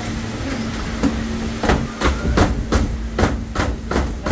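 Knife chopping fruit on a cutting board, in quick even strokes about three a second, starting about a second and a half in, over a steady low background hum.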